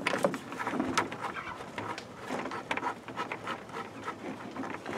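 Handling of a white plastic 5-gallon bucket and a short garden hose: scattered light clicks and rubbing as the hose's female end is threaded onto the bucket's pipe fitting.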